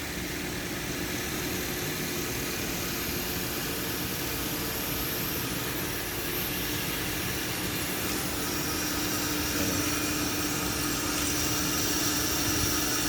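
Brake lathe running steadily as it refaces a front brake disc rotor to cure brake noise and dragging: an even machine hum with a thin high whine, growing slightly louder in the second half.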